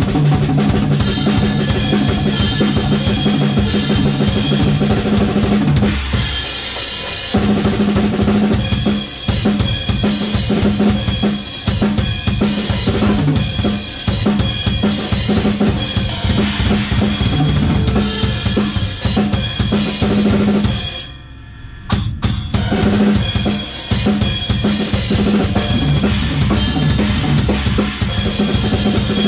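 Rock band playing a song, with the drum kit (bass drum, snare and cymbals) prominent under sustained bass and guitar notes. The band breaks off for a moment about 21 seconds in, then crashes back in.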